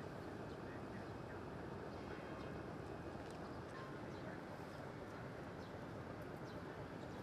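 Steady outdoor city ambience: a low, even rumble and hiss of distant traffic and river, with a few faint scattered ticks.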